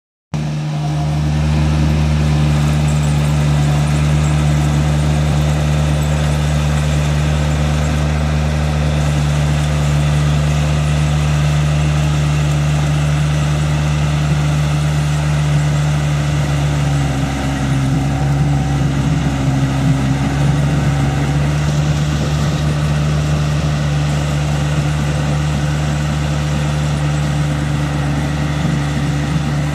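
Small Kubota rice combine harvester running steadily on its tracks while it cuts and takes in standing rice, a constant engine note with the machinery working.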